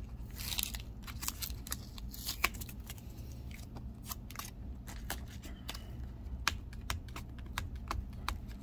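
Blue painter's tape being peeled off a stack of trading cards in rigid plastic holders, with scattered small clicks and crackles as the plastic is handled and a brief ripping hiss about half a second in.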